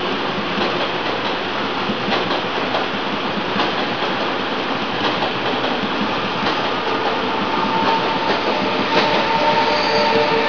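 Taiwan Railways E1000 push-pull Tze-Chiang express running past, a steady rumble of steel wheels on rail with scattered clacks at the rail joints. From about two-thirds of the way in, a steady electric whine of several pitches joins in as the rear locomotive draws near.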